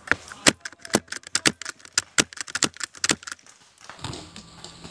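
Airsoft handguns firing a rapid, irregular volley of sharp cracking shots, about twenty in three seconds. The shooting stops about three seconds in and gives way to a faint steady hum.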